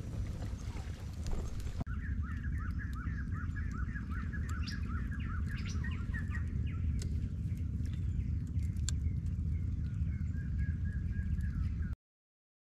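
Birds chirping in quick runs of short, rising, repeated notes, then in scattered calls, over a steady low rumble. The sound changes abruptly about two seconds in and stops dead near the end.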